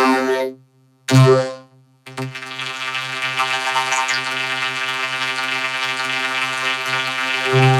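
Cartoon soundtrack run through a vocoder effect, which turns it into a synthesizer-like pitched tone. Two short, abruptly cut-off bursts come in the first two seconds, then one steady held tone at a single pitch.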